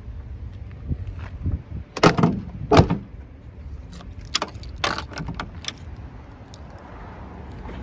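A run of sharp knocks and rattling clatter, the two loudest about two seconds in and a second apart, over a low steady rumble.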